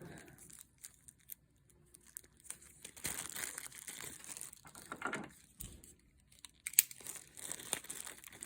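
Tough plastic packaging bag crinkling as it is handled and pulled at, on and off, with a few sharp clicks near the end.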